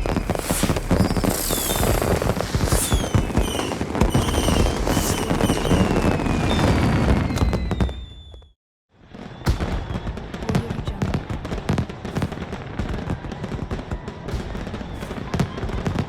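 Fireworks exploding in a dense barrage of bangs, with several whistles falling in pitch. About eight seconds in the sound drops out briefly, then resumes as a fast run of crackling pops.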